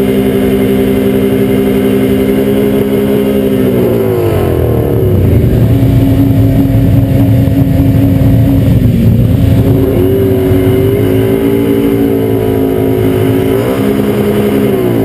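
Can-Am ATV engine running while sitting deep in water: steady for the first few seconds, then the pitch drops and it runs louder and rougher under load. About ten seconds in the revs rise and waver.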